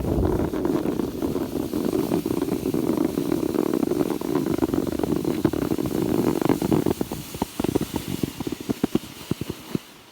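Sled runners sliding over snow: a steady rushing scrape that, about seven seconds in, breaks into separate crunching scrapes as the sled slows and the sound fades away.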